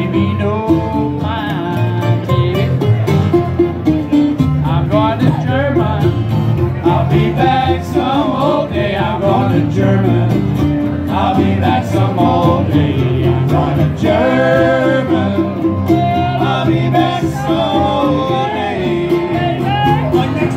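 Live acoustic jug-band music: a man singing over strummed acoustic guitar, upright bass and other plucked strings. Near the end he switches to a soprano saxophone.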